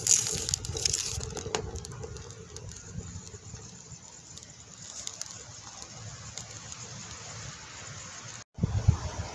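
Wood fire burning in a brick rocket stove, crackling and popping, most often in the first second or two, over a low steady rush. Near the end there are low gusts of wind on the microphone.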